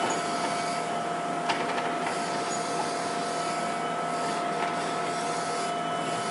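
A steady machine noise: an even hiss with a constant whine, unchanging throughout, with a single sharp click about a second and a half in.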